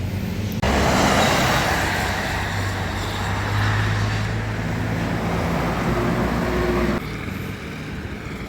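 Motor vehicle road noise: a steady low engine hum under a loud rush of tyre and road noise. It starts abruptly under a second in and cuts off abruptly about seven seconds in.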